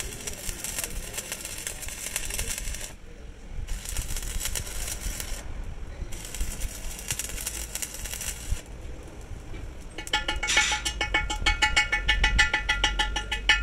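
Electric arc welding on a steel truck rim: the arc crackles and sputters in three runs of a few seconds each, with short breaks between them. From about ten seconds in, a fast, even series of ringing metallic taps takes over and grows louder.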